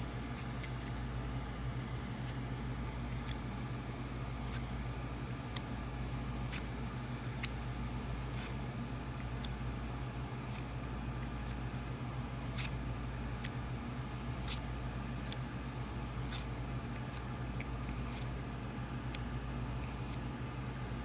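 Pokémon trading cards being flicked through one at a time, a short sharp card-slide tick about once a second over a steady low background hum.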